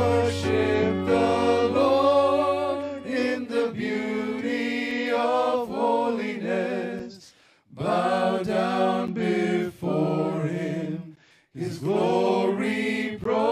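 Voices singing a worship song, phrase after phrase, with two short breaks between phrases, one a little past halfway and one about three-quarters through.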